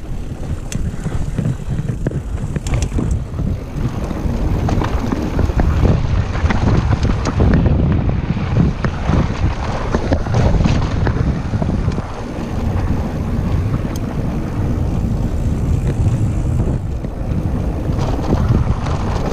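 Wind buffeting the GoPro Hero 5's microphone over the rumble of a Trek Powerfly FS 9 electric mountain bike's tyres rolling fast down a stony dirt trail. Frequent clicks and knocks come as the bike rattles over stones.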